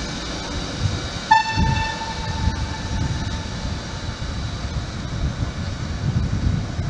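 Locomotive running away along the platform track with a low rumble. About a second in, it sounds its horn once: a single long tone, sinking a little in pitch.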